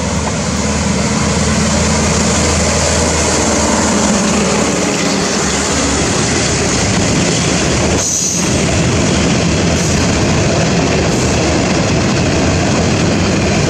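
A diesel locomotive hauling a long container freight train passes close by. Its engine is heard running during the first few seconds, then comes the steady rolling noise of the container flatcars' wheels on the rails.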